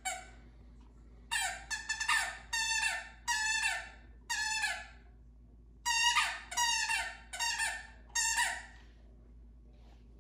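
A dog's orange squeaky toy squeaking over and over as a lying puppy chews it. The short squeaks fall in pitch and come in two quick runs, with a brief pause about halfway through.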